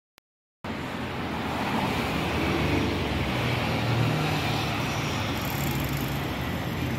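City street traffic: cars passing on the road, a steady rumble of engines and tyres. It starts abruptly about half a second in, after silence.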